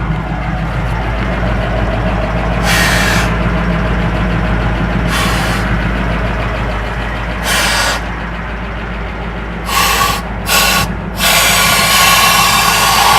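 Compressed air from a truck's air receiver hissing through a blow nozzle in five short blasts, then one long continuous blast from about eleven seconds in, blowing machining shavings out of an engine block's passages. Under it a truck engine idles steadily, keeping up air pressure.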